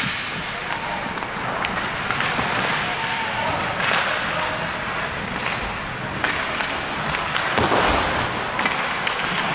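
Ice hockey play: skate blades scraping across the ice in a few swells, with sharp clacks of sticks and puck now and then.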